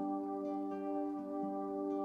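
Soft background music: calm, slow instrumental with held ringing notes.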